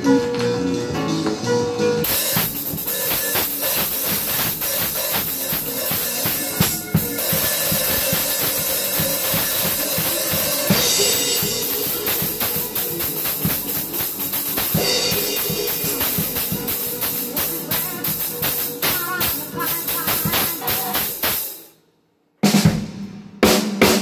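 Acoustic drum kit played along with recorded gospel music: fast kick and snare hits under ringing cymbals. The playing stops abruptly near the end, followed by a few more drum hits.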